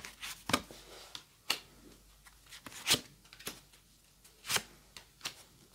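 Paper tarot cards being handled and laid down on a table one after another, a series of short sharp card flicks and slaps a second or so apart.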